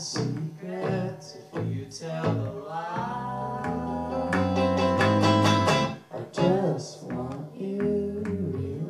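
Small band playing a song live: electric bass and guitar, with a voice singing long held notes.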